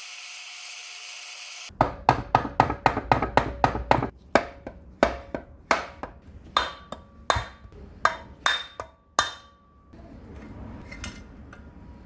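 Hammer blows on a metal part of an old electric planer, each with a short metallic ring. They come in a fast run of about four or five a second, then slow to single strikes and stop a few seconds before the end. A short steady hiss comes before the first blow.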